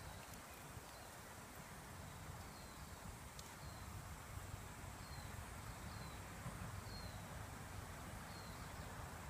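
A bird calling in short, falling chirps, about one a second from a couple of seconds in, faint against steady outdoor background noise.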